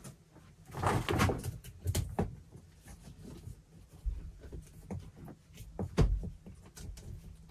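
Handling noise as an electrical cable is worked by hand through drilled holes and around a corner in wooden wall studs: irregular scraping and rubbing with scattered knocks, the loudest a dull thump about six seconds in.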